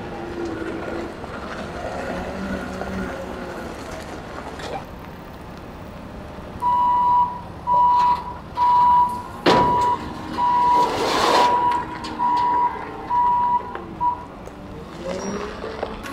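Wheel loader's diesel engine running, then its backup alarm beeping about once a second for several seconds as it reverses, with a sharp knock partway through the beeping.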